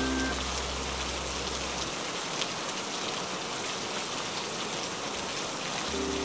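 Steady rain falling, an even hiss with scattered faint drop ticks. Soft music with held notes fades out in the first two seconds and comes back near the end.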